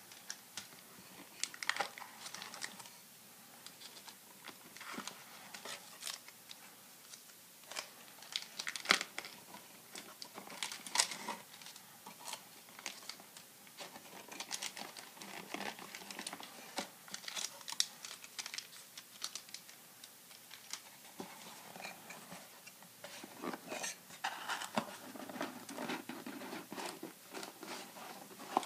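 Foil trading-card pack wrappers crinkling and cardboard rustling as hands sort sealed 1991-92 Upper Deck basketball packs in their box, with irregular sharp crackles and clicks; toward the end the box's cardboard flaps are handled.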